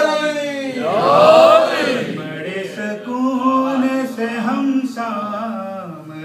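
Unaccompanied male voice chanting an Urdu devotional poem (manqabat) in praise of Imam Husayn, drawing out long notes that waver and glide in pitch about a second in, then holding steadier notes.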